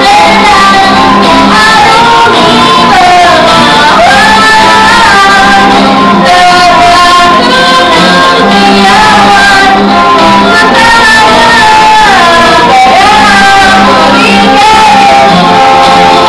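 Violin playing a melody with sliding, held notes over an acoustic guitar's chords, loud and close.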